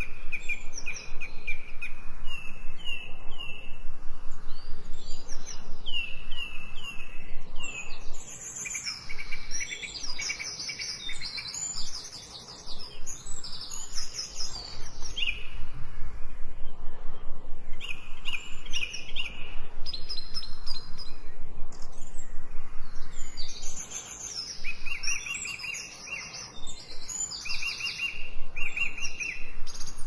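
Songbirds singing, several overlapping, in phrases of short repeated chirps.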